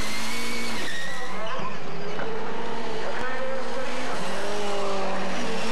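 Rallycross racing cars' engines running hard at race revs as they go through a corner, the engine notes rising and falling with throttle and gear changes.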